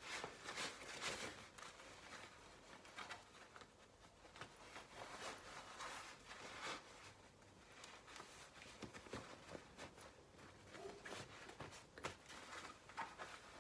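Faint, irregular rustling of the fabric straps of a Tula half buckle baby carrier being pulled through and tucked under, in short soft strokes.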